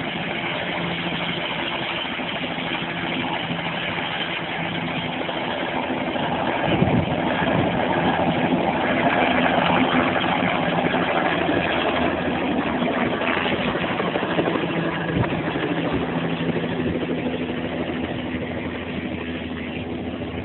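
Helicopter turbine and main rotor running as the helicopter lifts off, a steady whine and rotor beat that grows louder from about six seconds in, peaks around ten seconds, then slowly fades.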